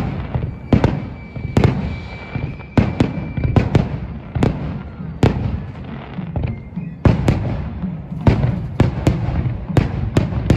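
Fireworks display: aerial shells bursting one after another at an uneven pace, more than a dozen sharp booms with echoing tails over a continuous low rumble.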